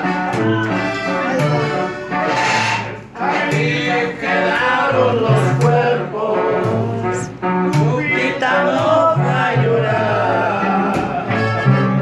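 Live band playing a song with singing: an upright bass plucks a steady bass line under strummed acoustic guitar.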